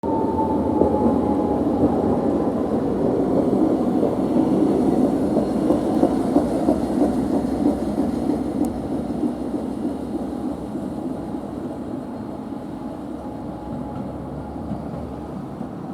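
Toden Arakawa Line streetcar running past, a steady rumble that slowly fades over the second half, with a motor whine falling slightly in pitch in the first couple of seconds.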